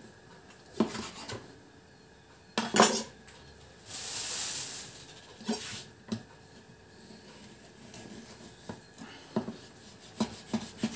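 Kitchen knife knocking and scraping on a wooden cutting board while slicing and trimming fat from raw pork: scattered knocks, the loudest about three seconds in. There is also a brief high hiss lasting about a second, about four seconds in.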